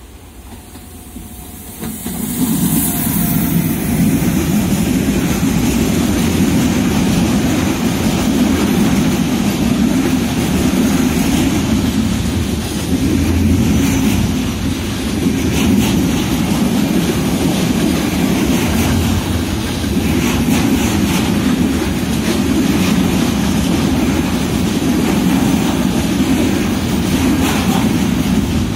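Container freight train passing close by behind a Railpool Bombardier TRAXX electric locomotive: the sound swells sharply as the locomotive goes past about two seconds in, then settles into the steady rolling rumble of the container wagons' wheels on the rails, with occasional sharp clacks.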